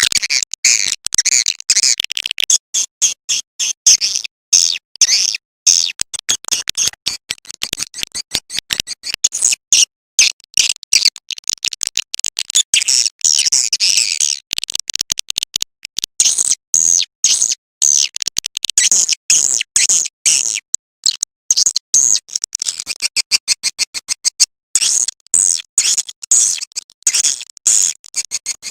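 Swiftlet call recording of the kind used to lure swiftlets: a rapid, unbroken stream of short, high-pitched chirps and twitters.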